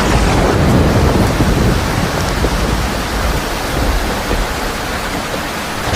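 Rainstorm: a steady roar of heavy rain with a deep rumble underneath.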